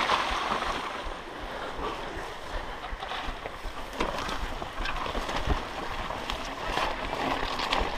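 Mountain bike tyres rolling and splashing through swamp water, with a few knocks from the bike and wind noise on the microphone.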